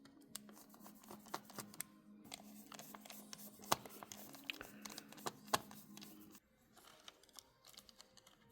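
Faint small clicks and taps of a T5 Torx screwdriver working the screws out of a MacBook Pro's aluminium chassis, scattered and uneven, over a faint steady low hum that stops about six seconds in.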